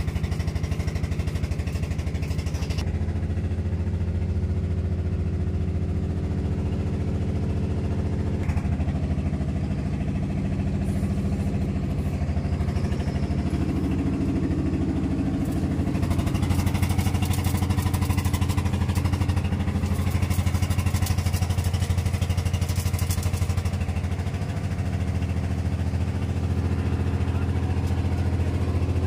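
An engine running steadily at an even speed, holding one pitch throughout.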